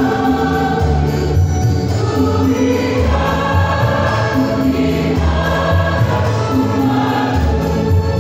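Mixed church choir singing a gospel song together, with sustained low notes beneath the voices.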